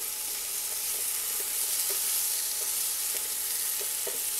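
Diced potatoes and strips of roasted poblano chile sizzling in hot oil in a nonstick frying pan, with a steady hiss and small knocks of a spoon against the pan as they are stirred; the strongest knock comes near the end.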